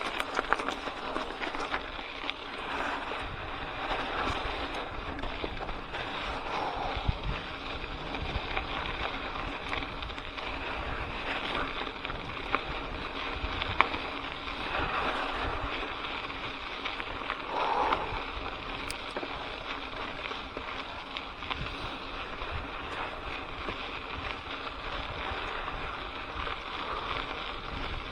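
Wind rushing over the microphone during a mountain-bike ride on a dirt trail, with scattered clicks and rattles from the bike.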